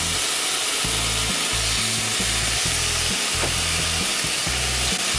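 Slices of marinated pork belly sizzling steadily in a frying pan over low heat.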